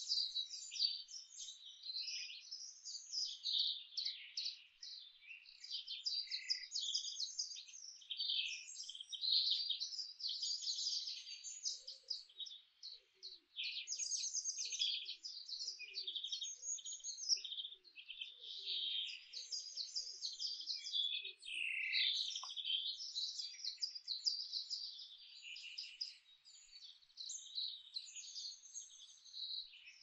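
Dawn-chorus-style birdsong: many songbirds singing and chirping at once in dense, overlapping high trills and calls. A faint series of short low notes sounds in the middle stretch.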